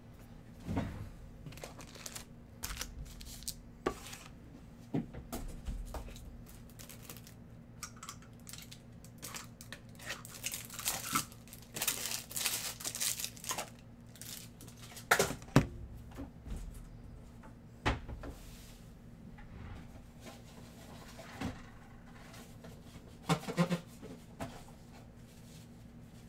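Paper or plastic wrapping being torn and crinkled, with scattered clicks and knocks from things being handled on a desk. The crinkling is busiest near the middle, and a few sharper knocks follow it.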